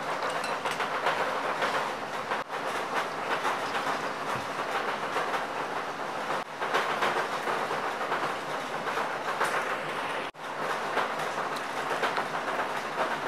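Steady rushing, crackling kitchen cooking noise, broken by short drop-outs about two and a half, six and a half and ten seconds in.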